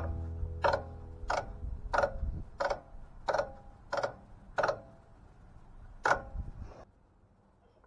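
A series of evenly spaced ticking notes, each ringing briefly, about three every two seconds, getting quieter and then cutting off abruptly near the end, as at the close of outro music.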